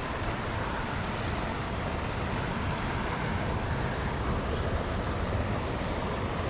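Steady rushing of a small river's current, mixed with a low, unsteady rumble of wind buffeting the microphone.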